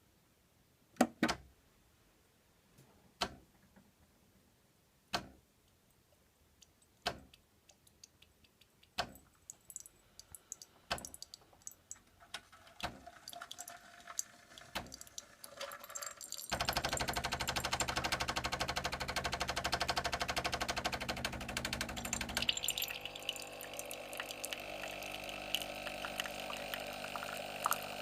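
Bosch Tassimo pod coffee machine brewing a milk disc: a sharp tick about every two seconds, then quicker crackling ticks, and about halfway through its pump starts with a steady buzz as liquid runs into the cup. The buzz changes in tone about six seconds later.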